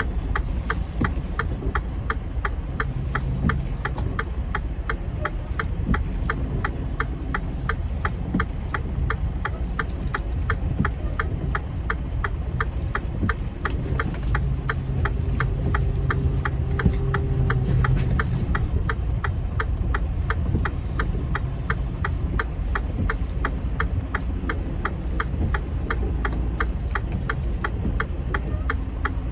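Semi-truck cab's diesel engine running at low speed with a steady low rumble, briefly rising a couple of times. Over it comes a fast, even clicking, several clicks a second.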